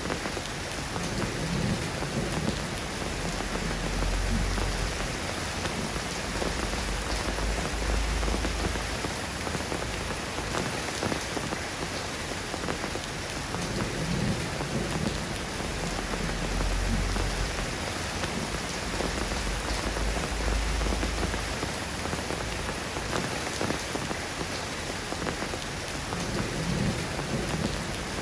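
Steady rain falling, an even hiss of drops, with a few low rumbles underneath.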